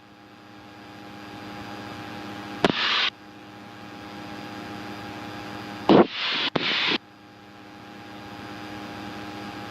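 Light airplane's engine drone heard through the cockpit intercom: a steady hum of several tones over a noise bed. Two short bursts of hiss cut in, one about three seconds in and one around six seconds.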